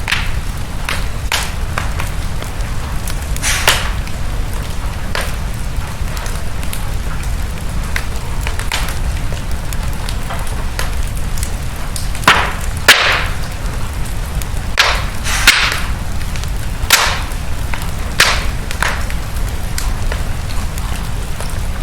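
Wood fire crackling in a fireplace: a steady low rumble of the flames with sharp pops and snaps at irregular intervals, a few louder ones about halfway through.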